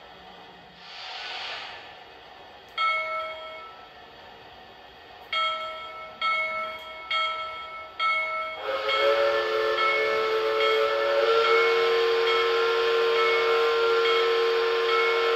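A model locomotive's sound system. It gives a short hiss of steam, then five short whistle toots spread over a few seconds, then a long multi-tone whistle blast held from about two-thirds of the way in.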